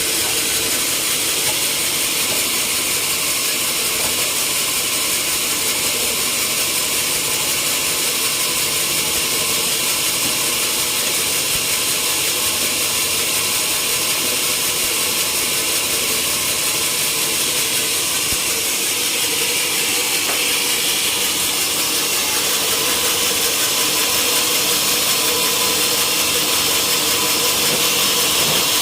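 Sawmill machinery running steadily, a dense, even mechanical noise with a faint steady hum, getting a little louder near the end.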